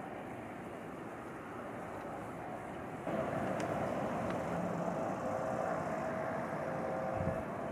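Steady outdoor background noise, then, about three seconds in, a double-deck RER C electric commuter train running on the line below: a low rumble with a steady, slightly wavering whine from its motors.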